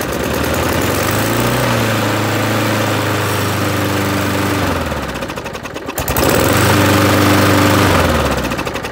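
Briggs & Stratton single-cylinder lawn mower engine running after a start. Its speed sags about five seconds in, picks up again, and sags once more near the end.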